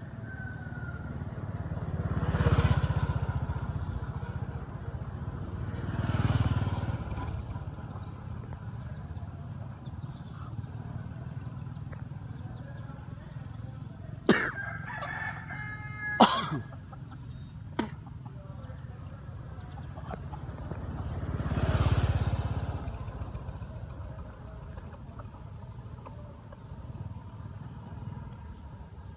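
A rooster crows once, for about two seconds, roughly halfway through. Three times, a vehicle passes, its sound swelling and fading over a few seconds.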